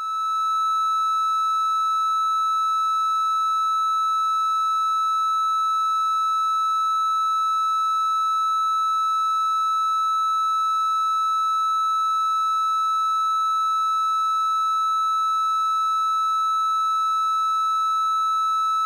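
Steady 1.3 kHz triangle-wave tone from the audio output of a CMOS 4069 inverter wired as an AC amplifier, with a 510 kΩ feedback resistor. The output is still a clean triangle wave: the inverter is working in its linear range, without distortion.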